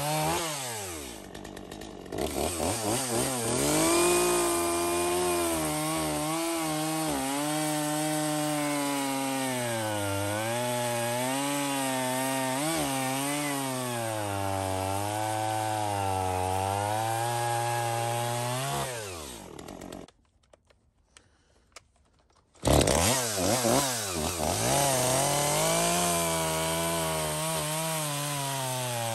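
Stihl MS 250 two-stroke chainsaw running at high revs and cutting wood, its pitch wavering as the chain loads up in the cut. The engine winds down just before two-thirds of the way through, there are about two seconds of near silence, then it comes back suddenly at full revs and cuts again.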